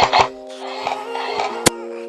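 Music with sustained synth-like notes that step between pitches. A rapid run of sharp hits ends just after the start, and a single sharp click comes about a second and a half in.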